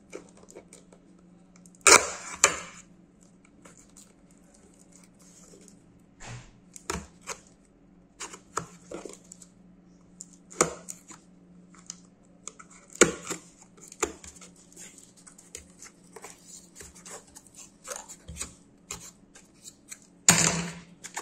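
A knife blade scraping and cutting through packing tape on a cardboard parcel, in scattered short strokes, with louder bursts of tape tearing and cardboard rustling about two seconds in and again near the end, as the flaps come open.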